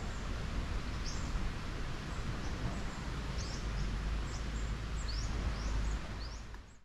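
Beach ambience: a steady wash of noise from the sea and breeze, with small birds chirping over it in short rising chirps, several times. It fades out near the end.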